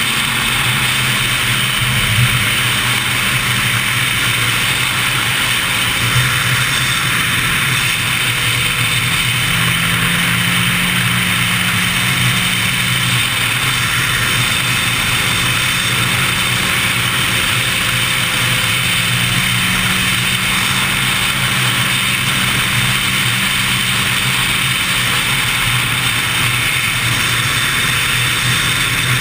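Sport motorcycle cruising at speed: steady wind rush over the camera microphone, with the engine running underneath at a fairly even pitch that shifts slightly a few times.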